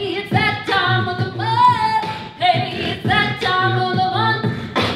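A cappella vocal music: voices singing a melody with no instruments, punctuated by a few sharp percussive mouth sounds.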